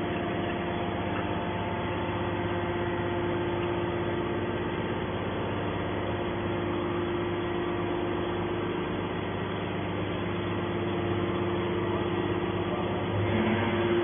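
Hydraulic metal scrap baler running with a steady hum from its pump and motor as the ram pushes a compressed bale of scrap metal out of the chamber. The tone shifts and gets a little louder near the end.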